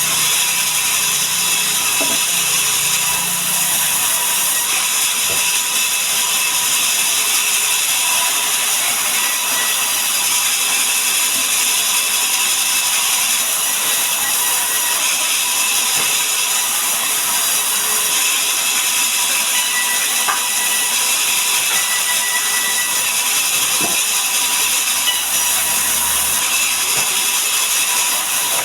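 Sawmill saw running and cutting mahogany timber: a loud, steady, hissing machine noise, mostly high-pitched.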